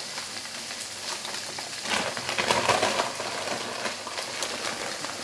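Diced potatoes, oyster mushrooms, onion, garlic and asparagus sizzling and crackling in hot oil in a frying pan. The sizzle swells louder for about a second, around two seconds in.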